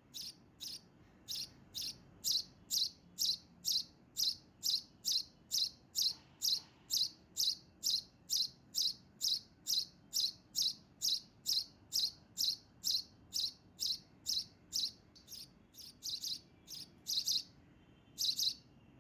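A bird chirping over and over in the background: short, high chirps, each falling slightly in pitch, about two a second in an even rhythm that grows a little irregular near the end.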